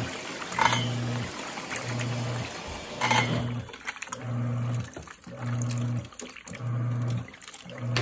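Giantex portable washing machine's motor humming in short even bursts about once a second as the pulsator turns the load one way and then the other. Water pours into the tub from a garden hose for the first three seconds or so, then stops.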